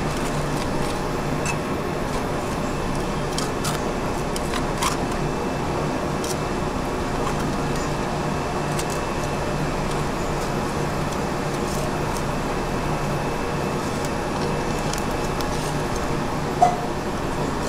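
Steady ventilation hum with even background noise, with a few faint clicks scattered through it and one short sharp sound near the end.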